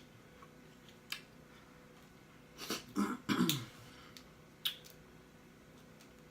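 Mouth sounds of eating: sharp lip-smacking clicks, and about three seconds in a short throaty vocal sound that falls in pitch.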